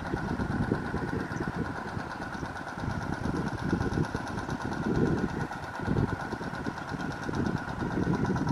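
Kubota RT120 two-wheel walking tractor's single-cylinder diesel engine running.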